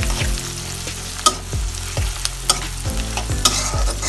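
Sliced onions, garlic and bay leaves sizzling in hot oil in a metal wok while a spatula stirs and scrapes them, knocking sharply against the pan about three times. The onions are being fried until they turn light brown.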